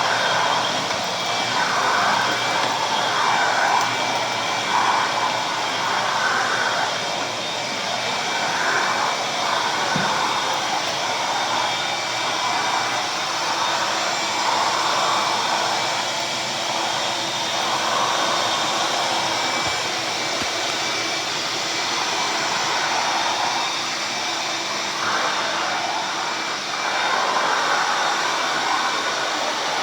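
Ridgid 5.0 HP 12-gallon wet/dry shop vac running continuously: a steady motor whine under a rush of air that swells and eases every second or two. A single short click comes about ten seconds in.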